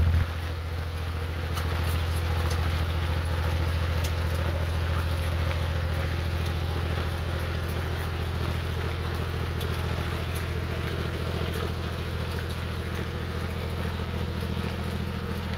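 Fishing boat's inboard engine running steadily with a low, even hum, easing slightly just after the start, under a continuous hiss of rain.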